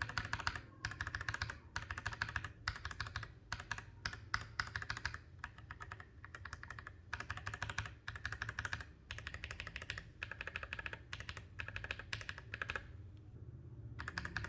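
Mechanical keyboard fitted with tactile Panda-style switches, including Feker Panda switches refitted with single-stage 63.5 g springs, typed on in quick bursts of keystrokes with short pauses between bursts.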